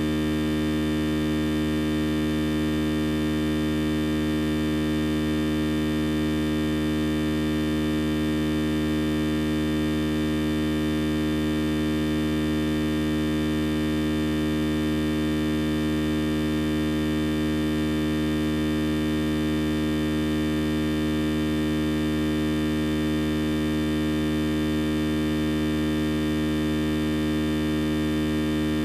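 A steady, unchanging hum with many overtones, holding the same pitch and loudness throughout.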